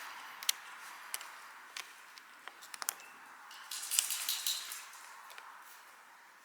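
Small clicks and taps of pneumatic nail gun parts being handled during reassembly, with a brief scraping rustle about four seconds in, over a steady faint hiss.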